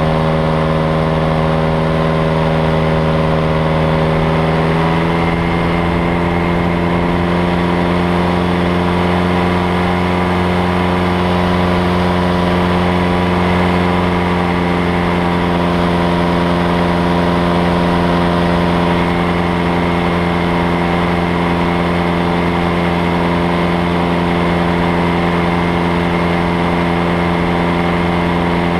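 Ultralight aircraft engine and propeller running steadily in flight, a loud droning note that shifts slightly about five seconds in, with rushing air behind it.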